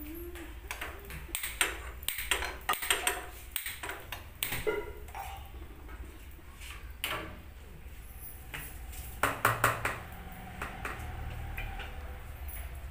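Kitchen utensils and cookware being handled around a frying pan: irregular clinks, taps and knocks, coming in clusters about two to three seconds in and again around nine to ten seconds.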